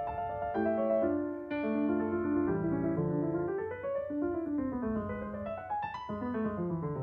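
Background piano music: a slow melody of single held notes that climbs and falls in phrases.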